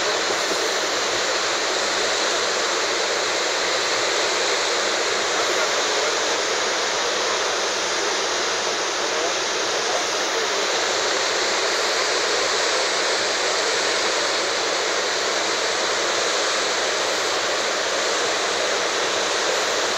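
Murchison Falls on the Nile: the steady, even rush of a large waterfall pouring into its gorge.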